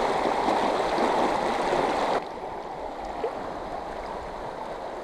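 River water rushing over rocks in a riffle, a steady hiss-like flow. A little over two seconds in, it drops suddenly to a quieter, steady flow.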